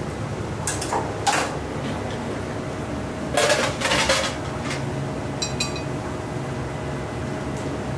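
Clatter of metal kitchen utensils and dishes: a couple of knocks about a second in, a louder clatter about three and a half seconds in, then two light clinks that ring briefly. A steady hiss of kitchen noise runs underneath.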